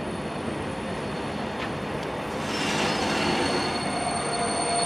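Train approaching along the platform, its running noise growing louder about halfway through, with thin, high, steady squealing tones from the wheels on the rails.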